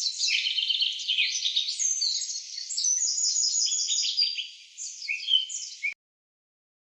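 Several small songbirds singing together in quick overlapping chirps and trills. The song cuts off abruptly near the end.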